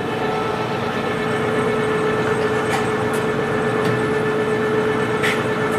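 LeBlond-Makino 15-inch Regal engine lathe running under power with the half nut engaged for a threading pass: a steady gear-train hum with one held tone, and a few faint ticks.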